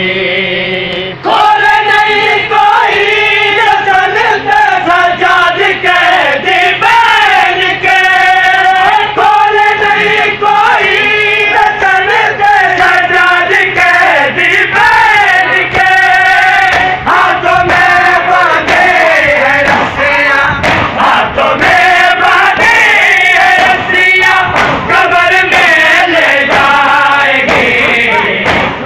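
A crowd of men chanting a Muharram noha (mourning lament) loudly in unison, with sharp slaps from chest-beating (matam) throughout.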